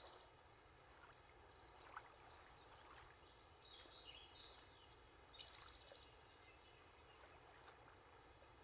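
Near silence: faint background hiss with a few faint ticks and high chirps.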